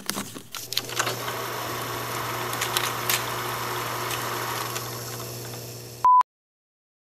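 Old-film sound effect for a film-reel intro: a steady hiss and low hum with scattered crackles and clicks, then a short, loud single-tone beep about six seconds in, like a film-leader countdown beep.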